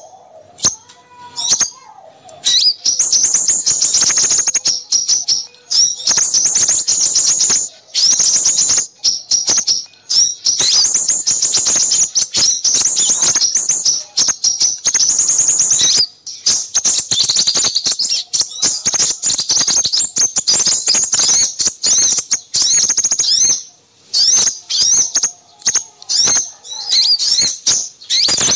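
A bird-trapping lure recording of small songbirds twittering in rapid, high-pitched chatter. It comes in dense bursts of one to three seconds with short gaps between them, meant to draw in crimson sunbirds.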